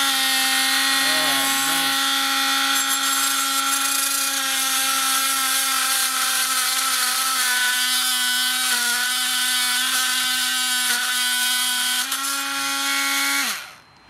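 Older brushed Makita 18V oscillating multitool running with a steady, noisy hum while its metal-cutting blade cuts through a steel nail in a board; the pitch wavers slightly under load in the middle, and the tool stops near the end.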